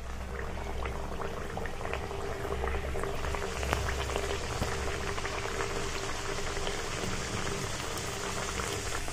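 Stuffed kachori deep-frying in hot refined oil in an iron kadhai on low heat: steady sizzling and bubbling with dense fine crackles, growing a little livelier about three seconds in, over a faint steady hum.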